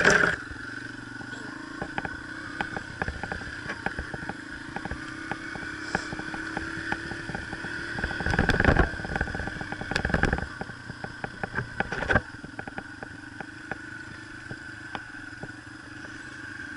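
Yamaha TT-R125 dirt bike's single-cylinder four-stroke engine running steadily at low trail speed, with frequent rattles and knocks from the bike over the rough dirt track. A loud knock at the very start and two louder rushes of noise a little past halfway.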